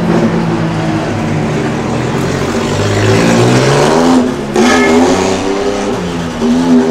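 Race-built kei truck's engine revving as it pulls away, its pitch rising and falling with the throttle, with a short drop a little past four seconds in.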